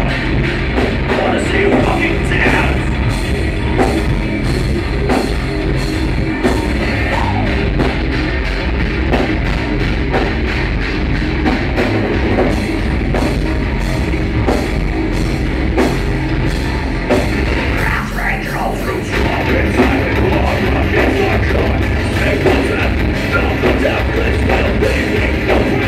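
Heavy metal band playing live and loud: distorted electric guitars, bass guitar and a drum kit, with fast, even drumming through the first half.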